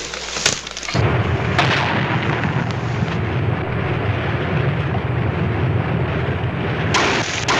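Depth charges going off at sea: a sudden blast about a second in, then a long, heavy low rumble with a few sharper strikes, and another loud burst near the end.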